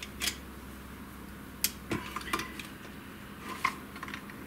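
A few light clicks and knocks from a USB charging lead being fitted into the plastic charging base of a cordless screwdriver.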